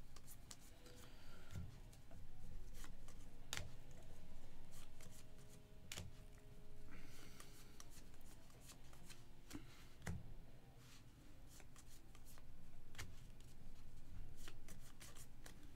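2024 Panini Score football cards being handled and flipped through, with scattered soft clicks and short rustles as the cards slide against each other.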